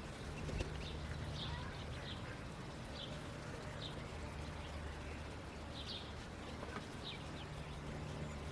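Newly hatched Indian Runner ducklings peeping: short high peeps, roughly one a second, over a steady low hum.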